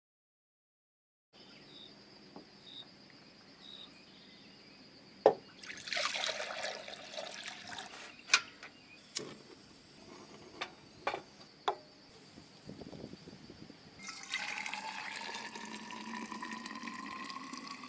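Water being poured into a container, splashing briefly about six seconds in, then running in steadily near the end with a tone that rises as the container fills. Sharp clicks and knocks come in between, over a faint steady high trill.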